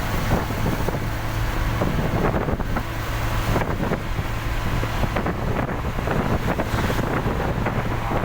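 A vehicle driving on a rain-wet road: steady road and wind noise over a constant low engine hum, with scattered faint ticks.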